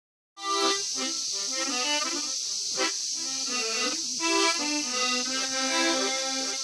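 Harmonica playing a short tune in chords, starting about half a second in.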